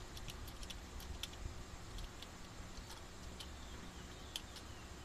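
Scattered light clicks and ticks from small carburetor parts and tools being handled, over a low steady hum.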